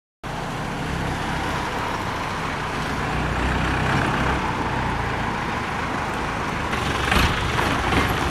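Engine of a TAM 80T50 light tanker truck running steadily as the truck drives off, with a couple of short knocks near the end.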